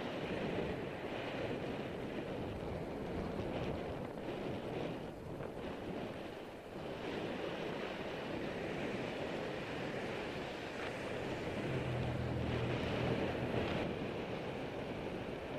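Wind rushing over the microphone of a camera on a moving bicycle, mixed with tyre and road noise. Late on, a low engine hum from traffic passing on the road beside the bike path rises for a couple of seconds.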